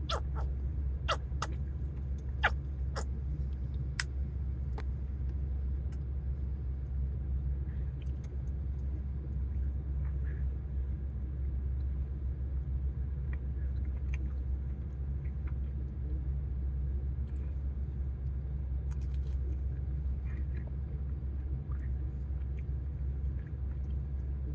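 Steady low rumble of a truck idling, heard from inside the cab, with a run of sharp clicks in the first few seconds.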